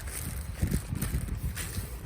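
Irregular low rumbling with soft thumps, like handling noise on the microphone, with faint rustling above it.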